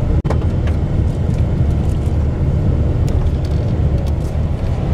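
Steady low rumble of engine and road noise inside a coach bus travelling at speed on a highway, broken by a very brief dropout about a quarter second in.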